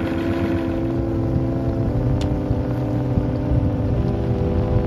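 Yamaha VMAX outboard motor running on a bass boat, a steady hum with wind rumbling on the microphone.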